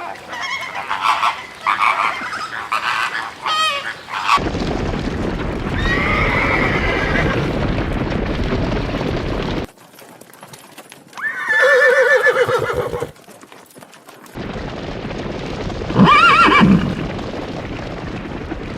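Horses whinnying, several separate neighs in short spliced-together clips, some over a steady rushing background noise.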